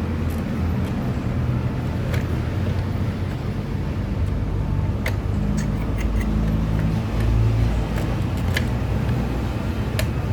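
Steady low engine hum, with a few sharp clicks and taps of parts being handled.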